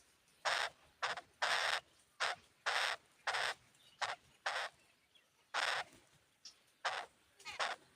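Jungle babblers at the nest giving a series of short, harsh, rasping calls, about one or two a second with a brief pause midway.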